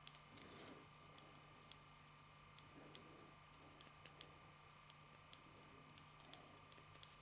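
Faint, irregularly spaced clicks, about fifteen of them, from the small, stiff, curved power button of a FlexTail Tiny Repel 165C light being pressed again and again to switch the light on, over a faint steady hum.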